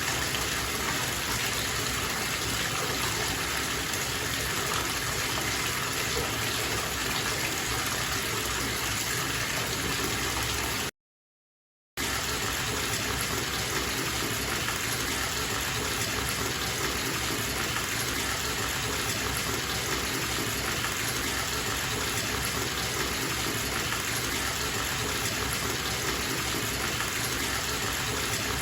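Bathtub tap running, water gushing steadily into the tub. The sound breaks off completely for about a second, about eleven seconds in, then resumes unchanged.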